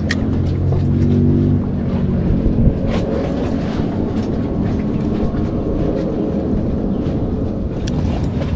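Vehicle traffic rumbling on the bridge beside the kayak, with a low hum that is strongest in the first two seconds and then eases to a steady rumble. It sits over continuous wind and water noise, with a few faint clicks.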